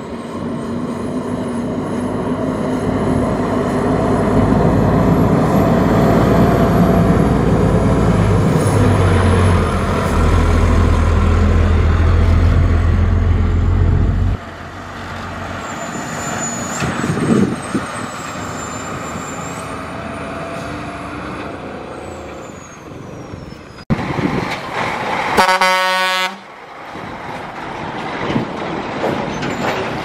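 Heavy dump trucks driving by, their diesel engines making a low rumble that builds over the first fourteen seconds and stops abruptly. About twenty-five seconds in, a truck horn gives one blast of about a second.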